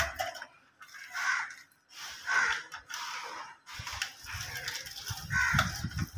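A bird giving several short, harsh calls, spaced unevenly, with a low rumble in the second half.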